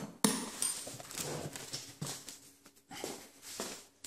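Handling noise on the recording device: a sharp click, then irregular knocks, rubbing and rustling as it is grabbed and moved.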